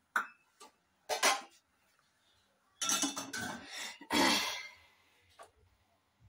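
Kitchen dishes and utensils being handled: a few short clattering, clinking bursts, the longest about three to five seconds in.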